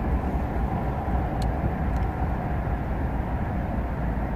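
Steady low rumbling background noise at the waterside, with a couple of faint ticks in the middle.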